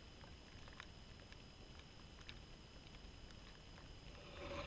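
Near silence with a faint steady hiss and a few faint clicks; near the end a faint swish grows louder as an alpine ski racer carves toward the gate.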